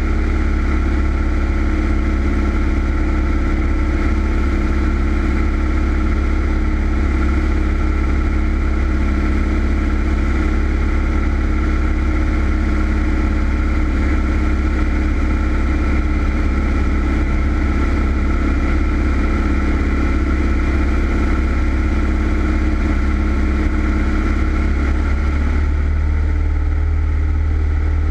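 Single-engine Cessna's piston engine and propeller running steadily in cruise, heard from inside the cockpit as a loud, constant drone. The engine note shifts slightly near the end.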